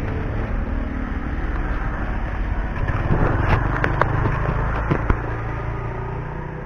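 A vehicle's engine running steadily as a low rumble, with a few sharp knocks from about three to five seconds in.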